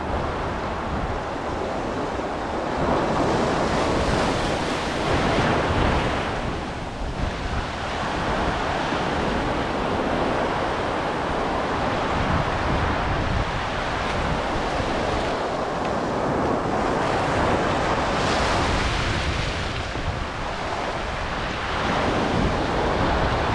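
Ocean waves washing over a flat reef shelf, foamy water sheeting across the rocks and rising and falling in surges, with wind buffeting the microphone.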